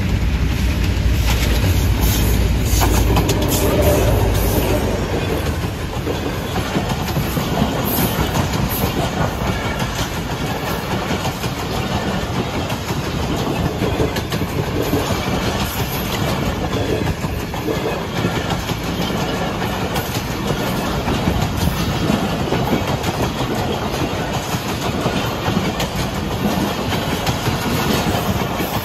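Passenger express train passing through a station, its wheels clattering over the rail joints in a steady run of clicks. A deep rumble in the first few seconds eases off, and the clatter continues.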